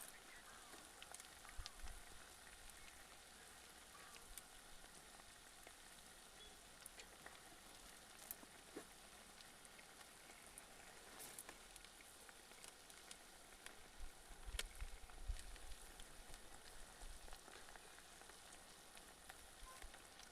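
Faint, steady sizzle of chicken frying, with scattered small crackles and pops.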